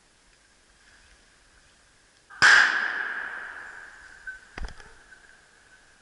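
A single close hunting-rifle shot, loud and sudden, its echo dying away slowly through the woods over about two seconds. Two short, fainter knocks follow about two seconds after it.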